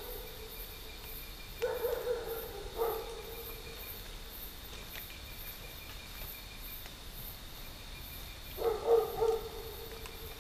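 A dog barking in a few short bouts: a couple of barks about two seconds in, one near three seconds, and a run of barks near the end. Insects chirp and drone steadily underneath.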